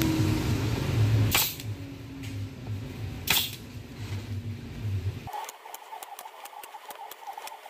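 Pneumatic brad nailer firing brad nails into a wooden frame: two sharp shots about two seconds apart. A steady low hum underneath cuts off about five seconds in.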